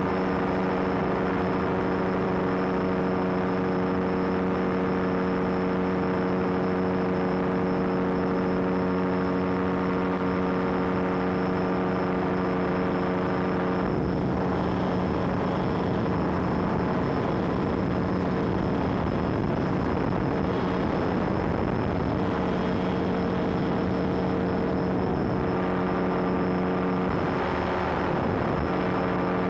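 Weight-shift microlight trike's engine and propeller droning steadily with air rushing past. About halfway through, the steady engine note breaks up under a louder rush of air, and it settles back near the end.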